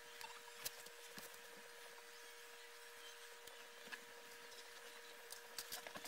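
Near silence with a faint steady hum and a few soft clicks and handling noises from raw bacon being wrapped around quail by hand on a cutting board, the clicks coming more often near the end.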